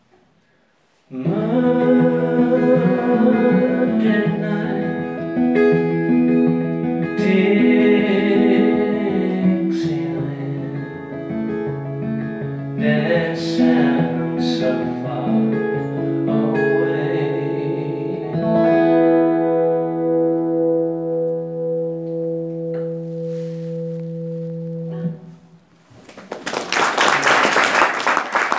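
Live acoustic guitar music with a voice, ending on a long held chord. Audience applause starts near the end.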